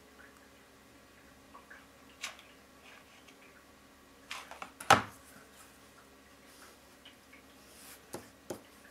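A few light clicks and knocks from handling a hot glue gun while gluing fabric down: one small click, then a short cluster with one sharp knock about five seconds in, and two more knocks near the end as the glue gun is set down.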